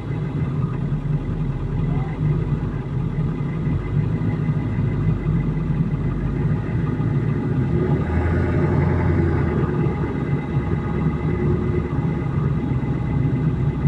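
Vehicle engine running steadily at low revs, with a brief swell in the engine sound about eight to ten seconds in.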